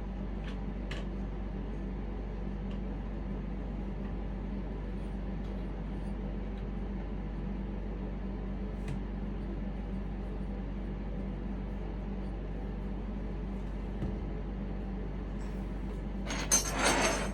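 Steady low hum with a few faint clicks as plastic sink-drain parts are handled, then a short rattling clatter near the end.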